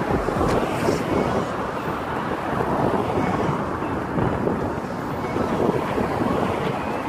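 Wind buffeting the microphone in a steady, fluttering rush, over the noise of passing road traffic.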